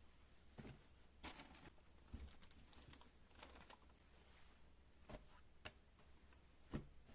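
Faint, irregular light clicks and taps of small household handling, with the loudest tap near the end.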